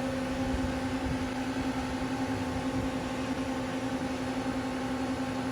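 Steady hum of the powered-up 1990 Mazak MT V-550A CNC vertical mill standing idle, a constant low-mid tone with no change in pitch or level.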